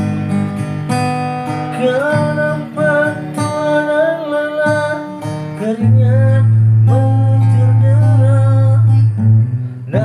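Background music: a song with acoustic guitar and a wavering melody line that comes in about two seconds in, over a long held low note in the second half.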